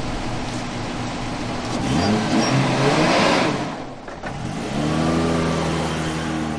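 Toyota Land Cruiser pickup's engine idling, then revving up as the truck pulls away about two seconds in, with a rush of tyres on sand. Near the end it runs at a steady higher note as it drives past close by.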